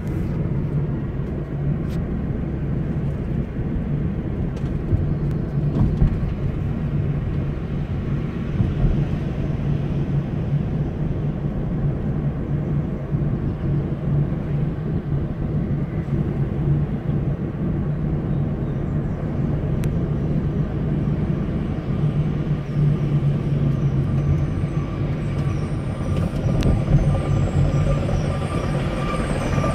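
Heavy diesel engines of dump trucks and an asphalt milling machine running with a steady, low rumble. About 26 seconds in, high-pitched steady tones join the rumble.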